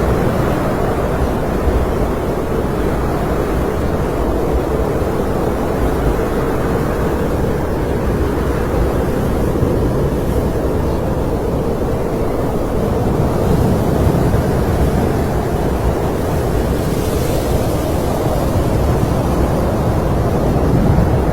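Steady snowstorm wind blowing, an even low rush with no gusts or breaks.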